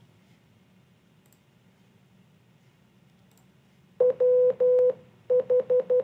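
Morse code played back from an audio file: a steady single-pitched beep keyed on and off, starting about four seconds in with a dot and two dashes, then a quick run of short dots. Before it, only two faint clicks.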